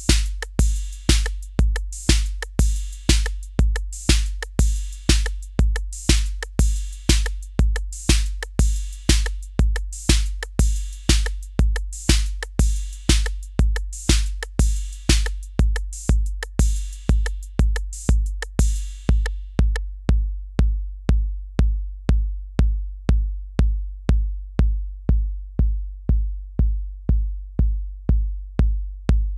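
Yocto TR-808 clone analog drum machine playing a beat: a deep, booming 808 bass drum about twice a second, with hi-hats and other bright percussion hits over it. About two-thirds of the way through the bright layers drop out, leaving the bass drum and thin ticks.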